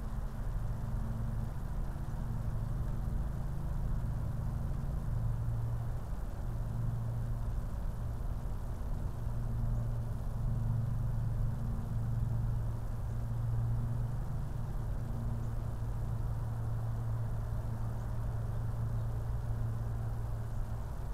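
A steady low mechanical hum, like a motor or engine running, holding one deep pitch and swelling slightly in the middle.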